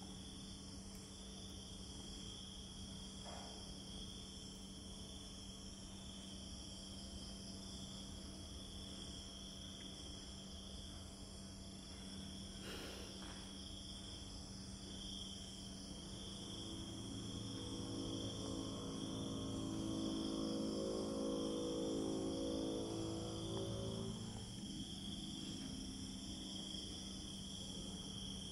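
Night-time insects chirring in a steady, even, high-pitched chorus over a low steady hum. About two-thirds of the way in, a low drone with several pitches swells up and becomes the loudest sound, then fades away near the end.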